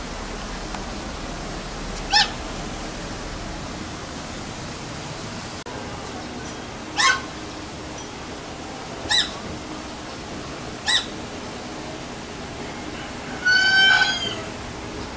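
White Chinese goose honking: single short honks about two, seven, nine and eleven seconds in, then a longer, drawn-out call near the end.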